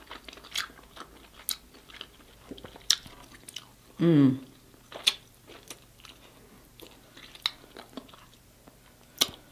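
Close-miked eating sounds of king crab in butter sauce: wet chewing, lip smacks and finger licking, heard as scattered sharp clicks. A brief hum of the voice comes about four seconds in, and a louder click near the end.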